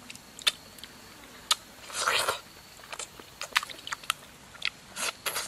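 Someone biting, chewing and knife-cutting crisp fresh fruit flesh: scattered sharp crunching clicks, with a short noisy burst about two seconds in and another near the end.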